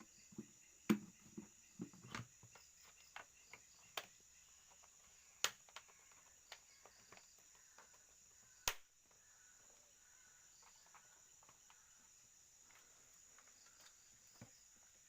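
Scattered sharp clicks and knocks of parts and tools being handled during servicing of a stopped diesel engine: a cluster in the first two seconds and a loud knock about nine seconds in. A steady high insect trill runs behind them.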